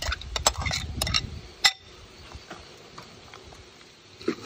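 Steel spoon clinking and scraping against a glass bowl as chopped tomatoes are scraped out into the pan: a run of sharp clinks in the first couple of seconds.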